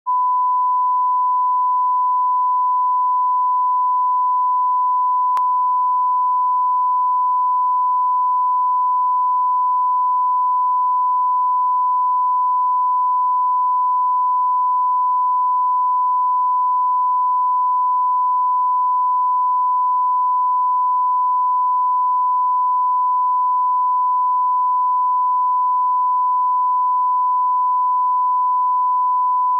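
Continuous 1 kHz line-up test tone, one steady pure pitch that accompanies SMPTE colour bars, the reference signal used to set audio levels at the head of a broadcast master.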